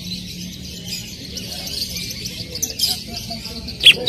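Greater green leafbird (cucak ijo) singing: a busy, continuous high chattering warble, with a loud sharp call near the end.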